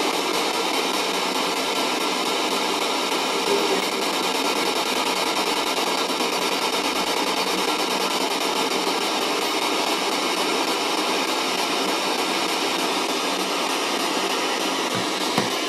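P-SB11 spirit box sweeping through radio stations: a steady, unbroken hiss of radio static.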